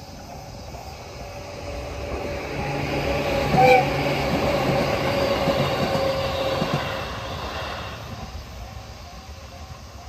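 Electric passenger train passing over a level crossing, its wheels clacking over the rail joints. The noise builds from about two seconds in and fades away by about eight seconds, with a short sharp tone at its loudest point. Under it the crossing's warning bell rings steadily.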